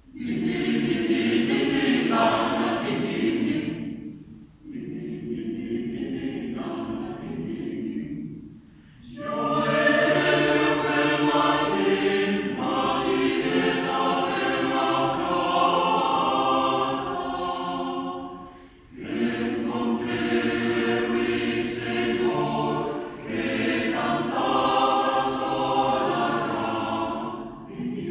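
Small mixed-voice choir singing a sixteenth-century song a cappella, starting from silence, in phrases with short breaths between them. A thinner, quieter passage comes about five seconds in before the full choir returns.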